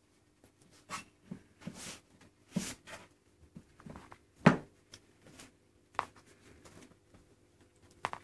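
Maine Coon kittens playing on a hard floor: scattered light knocks, scuffs and rustles at irregular intervals, with one louder knock about four and a half seconds in. A faint steady hum runs underneath.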